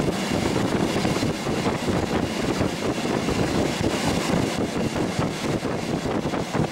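Steady running noise of a train heard from on board: wheels rolling on the rails with the carriage rumbling along at speed.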